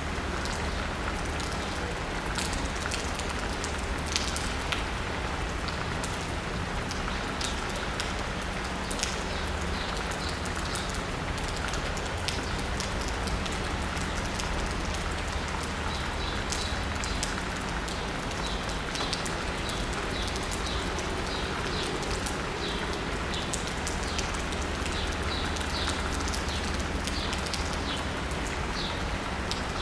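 Steady rain pattering on asphalt and rooftops, with many close drips, over a low steady rumble. From about halfway on, birds chirp in short repeated calls.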